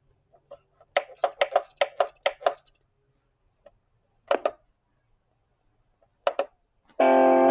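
A quick run of short taps or clicks from handling a device, about four a second, then two more taps a few seconds apart. Recorded music for the next song starts near the end.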